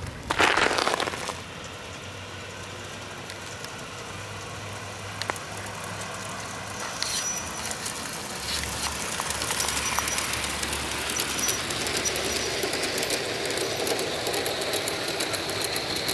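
G-scale Bachmann Consolidation model steam locomotive with a converted electric drive running on outdoor track: a steady mechanical rattle and hum of its motor, gears and wheels. It grows slowly louder toward the end, with a thin high whine rising above it.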